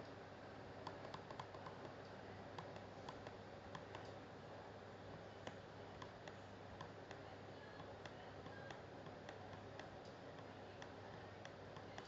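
Faint, irregular clicking from a computer being operated, a few clicks a second in places, over a low steady hum.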